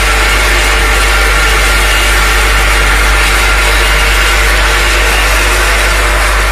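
An automatic mothball packing machine with a vibratory feeder running steadily. It makes a continuous loud mechanical noise over a steady low hum.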